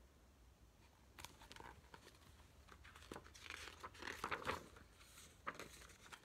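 Paper pages of a picture book rustling and crinkling as the page is turned, in a few short scattered rustles.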